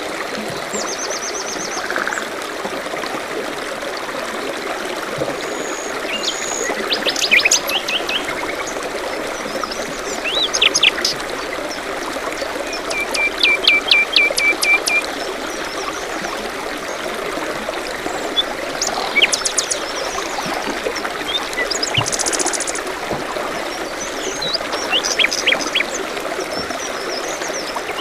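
Small stream running steadily, with songbirds chirping over it every few seconds; about halfway through, one bird gives a quick run of repeated short notes.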